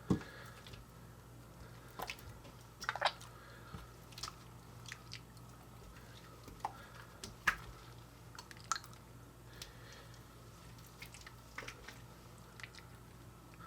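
Coca-Cola slime being squeezed and worked by hand: irregular wet squelches and small sharp pops, scattered unevenly, over a steady low electrical hum.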